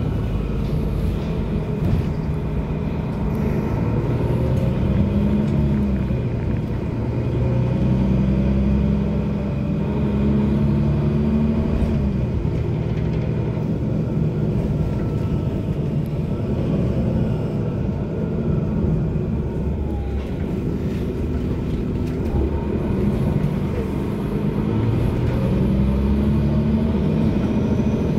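Mercedes-Benz O530LE Citaro low-entry city bus heard from inside the passenger cabin while driving. Its engine drone climbs in pitch and falls back several times as the bus accelerates and changes gear, over a steady road rumble.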